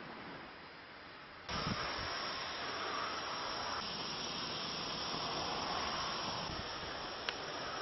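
Steady hiss-like noise that jumps abruptly louder about a second and a half in, then holds steady, with a single sharp click near the end.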